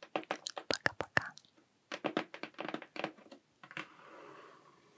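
Long fingernails tapping quickly on a cardboard camera box in two runs of sharp taps, then a second or so of nails scratching across its surface near the end.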